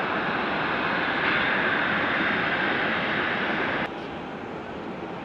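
Jet airliner engine noise heard from a distance across the airfield, a steady rush that grows a little louder about a second in. It cuts off abruptly near the end, leaving a quieter steady rush.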